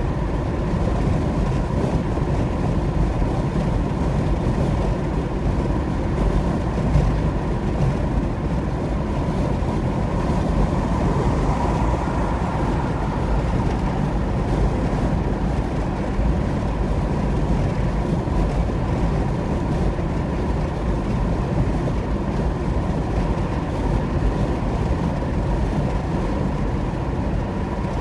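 A car driving at highway speed: a steady rumble of tyres on the road together with engine and wind noise, with no breaks or sudden events.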